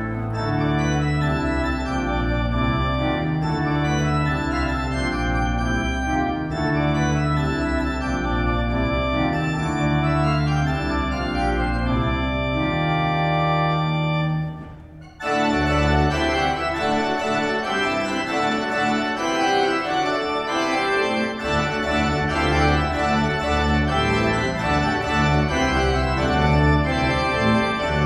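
Church organ playing a lively piece of many quick notes over long held bass notes, with a brief break about halfway through before it carries on.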